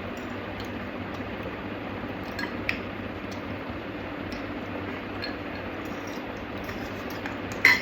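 Utensils clinking lightly against dishes while food is eaten, with one sharper, louder clink near the end, over a steady background hum.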